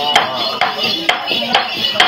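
Tày ritual chanting with sharp taps keeping time about twice a second.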